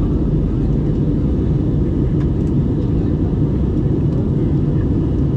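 Steady low rumble of a jet airliner in flight, heard inside the cabin: engine and airflow noise, deep and unchanging.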